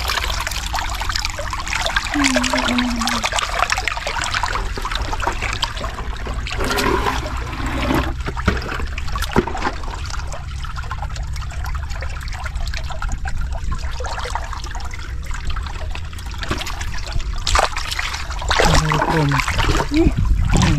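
Shallow muddy floodwater running steadily over ground and rocks, with a few brief splashes.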